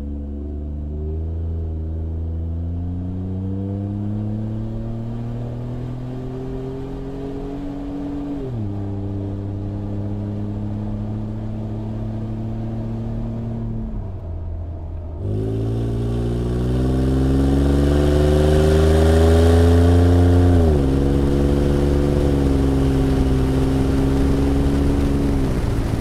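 Ford F-150's 3.5L EcoBoost twin-turbo V6 through an MBRP Pro Series 3-inch stainless cat-back exhaust, accelerating hard through the gears: the engine note climbs, drops at an upshift about eight seconds in, then climbs again. The first half is heard from inside the cab; from about fifteen seconds in it is heard outside at the exhaust tips, louder, climbing to a second upshift.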